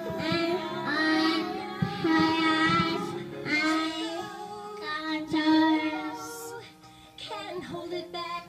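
Young children singing a song, with long held notes; the singing drops away briefly about seven seconds in.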